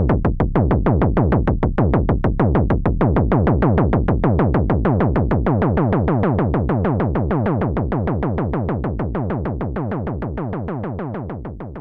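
Moog Werkstatt-01 analog synthesizer playing a patched kick drum: fast repeated hits, about five a second, each a short tone that drops quickly in pitch. The VCO is swept by the envelope and the hits are clocked by the LFO's square wave. The hits fade out near the end.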